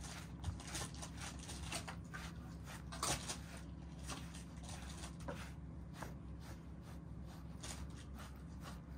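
Pet brush stroking through a cat's fur: short scratchy swishes, about one a second, at an irregular pace.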